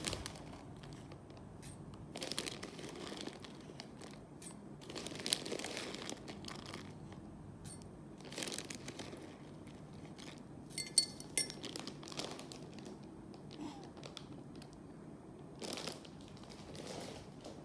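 Clear plastic bag crinkling and rustling in scattered short bursts as muesli is tipped from it into a glass mug. A sharp clink about eleven seconds in.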